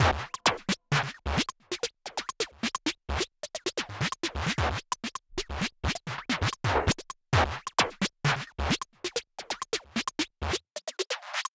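Electronic background music made of a choppy, stuttering run of short sharp hits; the bass drops out near the end.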